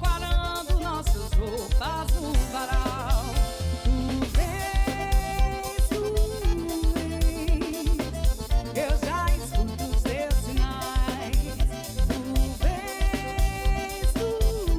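Band music with a steady drum beat under a wavering melodic lead line, no sung words.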